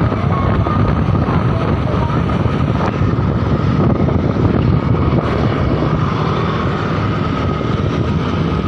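A bus running on the road: a steady drone of engine and road noise with a faint, even whine above it.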